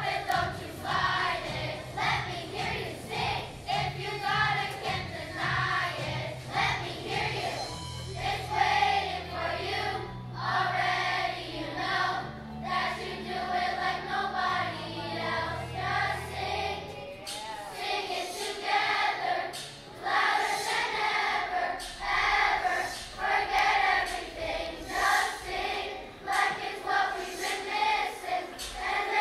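A choir of fourth-grade children singing together over an accompaniment with a low bass line. The bass notes stop a little past halfway, and the children's voices carry on alone.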